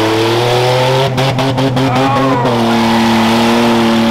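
Rough truck pickup's engine revving hard on a dirt track: the pitch climbs steadily, drops abruptly about two and a half seconds in as it shifts, then holds at high revs.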